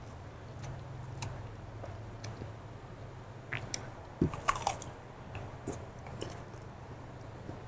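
Close-miked eating: a person biting and chewing crunchy raw vegetables, with scattered crisp crunches and the loudest bites about four to five seconds in.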